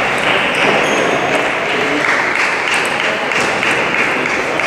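Table tennis balls ticking off bats and tables at neighbouring matches, a scattering of light, irregular clicks. Under them runs a steady hiss of background noise in the large hall.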